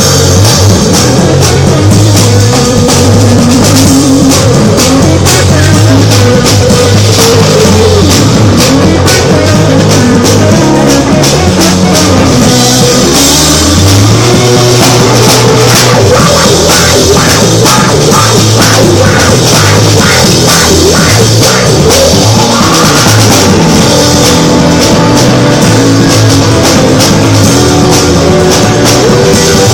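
Loud rock music with a drum kit and a moving bass line, playing without a break.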